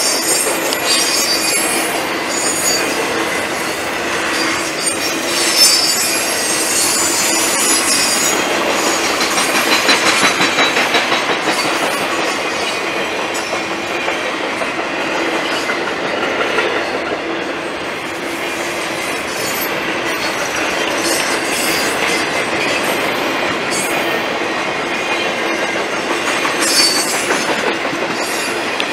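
Triple Crown RoadRailer trailers on rail bogies rolling steadily past, with the wheels rumbling and clattering over the rail joints. High-pitched wheel squeals come and go several times.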